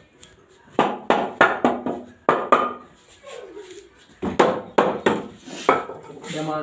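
Hammer blows on the corner joint of a wooden frame: about a dozen sharp, ringing strikes in two quick runs, with a pause of a second or two between them.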